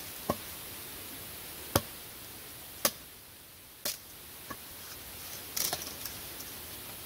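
Hatchet chopping into wood: four sharp strikes about a second apart, then a lighter knock and a quick flurry of softer knocks and rustling near the end.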